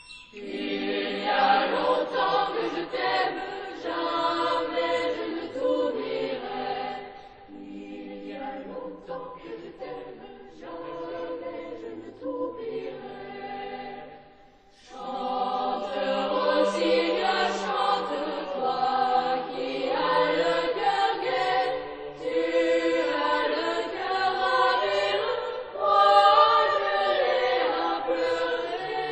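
French boys' choir singing, softer through the middle with a brief break about halfway, then fuller again.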